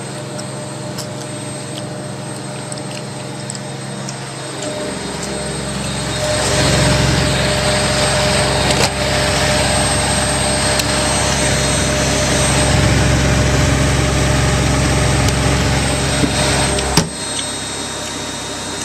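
Zanussi washing machine spinning at high speed: a steady motor hum that swells over a couple of seconds about five seconds in into a loud steady rushing whir, then drops sharply near the end.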